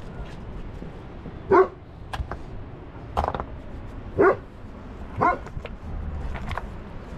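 A dog barking: four short barks about a second apart. Stones clack now and then as they are stacked.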